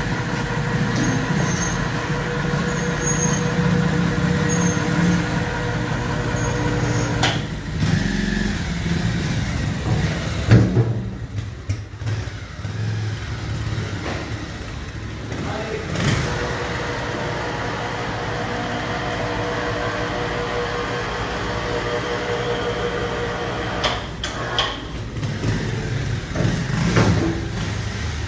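Motorcycle engine idling steadily, with a handful of sharp metallic clunks.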